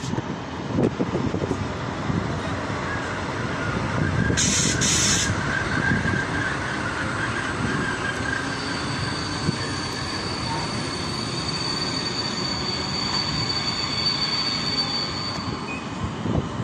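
Electric locomotive and its train rolling into the station, a steady rumble of wheels on rail. Brakes or wheels give a thin high squeal from about eight seconds in that stops shortly before the end, with a brief hiss about four and a half seconds in.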